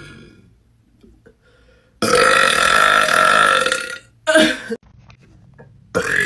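A woman burping loudly: one long burp of about two seconds, followed by a short burp, with the tail of a burp at the start and another burp starting near the end.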